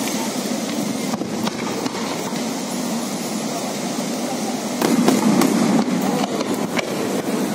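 Aerial fireworks going off: a couple of sharp bangs early, then a denser run of bangs and crackles from about five seconds in, over a steady low background noise.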